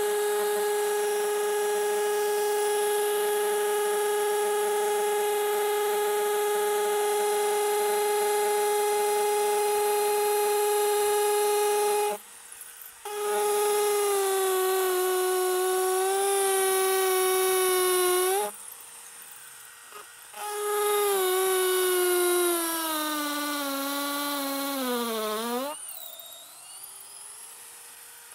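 DeWalt 12V Xtreme cordless hammer drill in hammer mode at speed two, boring into a concrete block with a steady whine. It stops briefly twice while the bit's flutes are cleared, and each time it restarts its pitch sags under load. Near the end the pitch slides down before the drill stops.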